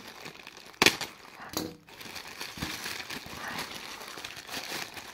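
Plastic poly shipping mailer being slit with a utility knife and handled: two short sharp sounds about a second and a second and a half in, then steady crinkling and rustling of the plastic as hands pull at the bag.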